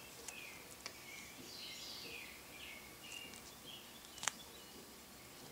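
Quiet handling of a coin in a stapled cardboard 2x2 holder: a few soft clicks and one sharper tick about four seconds in. Faint, short, high chirps come and go behind it.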